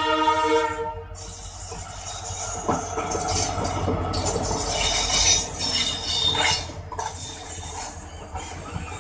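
Horn of an EMD WDP4 diesel locomotive, cutting off about a second in. Then the locomotive's two-stroke diesel engine and its passenger coaches pass close by, with wheels clicking over the rail joints.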